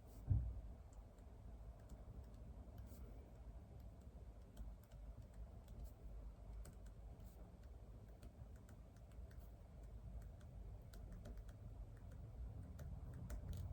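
Typing on a computer keyboard: faint, irregular key clicks, with a single low thump just after the start.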